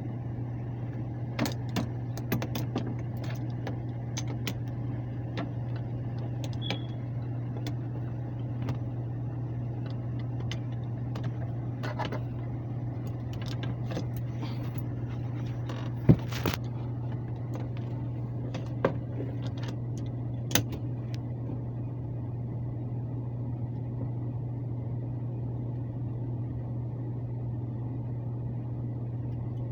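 Lennox air handler blower running with a steady low hum, left on to defrost an iced-up coil, with scattered sharp metal clicks and knocks of work on the unit, the loudest about sixteen seconds in.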